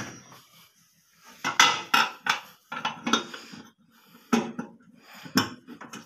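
Clinks and knocks of microwave turntable parts being handled and set in place in the cavity: a run of sharp knocks and clatter in the middle, then two single knocks near the end.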